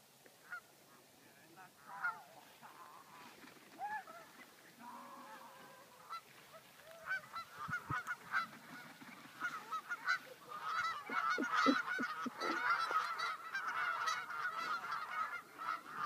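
A flock of geese honking, with scattered calls at first that build into a dense, louder chorus of overlapping honks during the last third.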